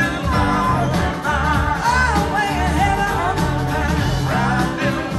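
Live blues-rock band playing: drums, electric bass, keyboards and electric guitars, with a wavering, gliding lead line over a steady beat.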